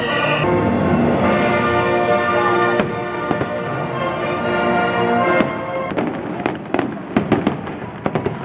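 Fireworks display: aerial shells bursting with sharp cracks, a few single bangs at first, then a rapid string of them in the last two or three seconds. Orchestral music plays under the bursts and fades as the bangs thicken.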